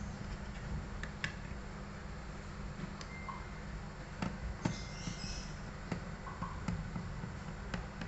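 Scattered light clicks and taps of a screwdriver and small metal screws on a laptop's processor heatsink as they are worked loose and handled, about eight in all at uneven intervals, over a steady low hum.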